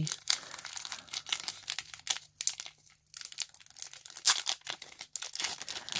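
Foil wrapper of a Pokémon trading-card booster pack crinkling and tearing as it is opened by hand: a run of irregular crackles, the sharpest about four seconds in.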